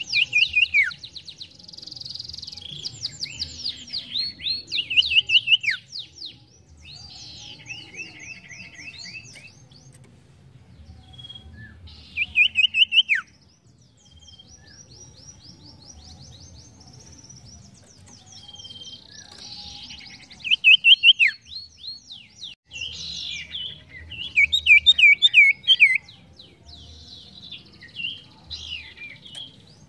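A sirtu songbird singing: bursts of rapid high trills and chattering whistles, several phrases ending in a quick downward-swooping whistle, with short pauses between phrases.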